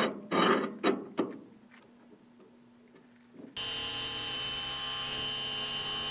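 A few sharp clunks of hands setting a metal lathe's tool post and controls, then brief quiet. About three and a half seconds in, the Grizzly G0750G lathe comes in suddenly and runs steadily, a whine of several fixed tones over a hiss, as it spins a long rebar rod.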